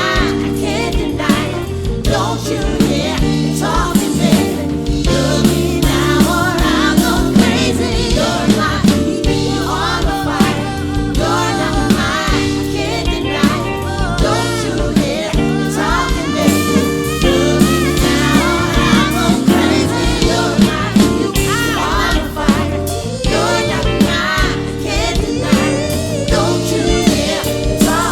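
Live soul band performance: female vocalists singing in harmony over bass, keyboards and a drum kit keeping a steady groove.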